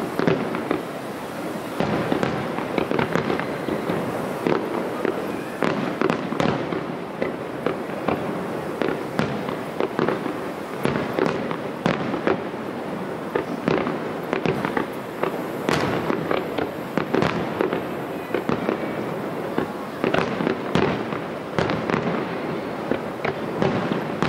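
Aerial firework shells bursting in quick, irregular succession, a dense run of bangs with a constant crackling haze between them.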